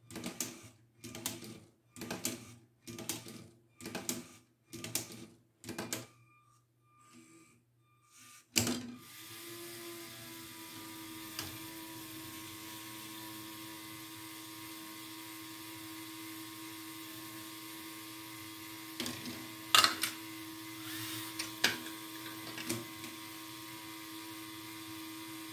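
Electric motors and plastic gearing of a LEGO Spike ball contraption running. First there are about seven short mechanical bursts, roughly one a second. After a sharp click about eight and a half seconds in comes a steady motor whine, with a few sharp clacks near the end.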